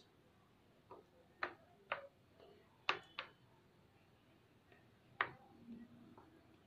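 The edge of a white plastic spoon cuts down through soft set rice and clicks against a stainless steel plate: about six faint, sharp clicks at irregular intervals as the rice cake is scored into pieces.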